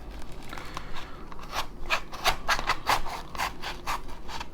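Plastic blister packaging being worked open: a fast run of short scratchy strokes, several a second, starting about a second in.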